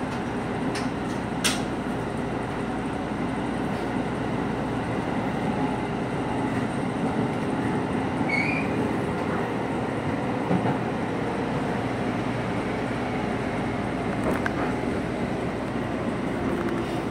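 Seibu 2000 series electric commuter train running along the track and into a station, heard from the cab: a steady rumble of wheels and motors, with a few light clicks near the start and a brief high wheel squeal about halfway through.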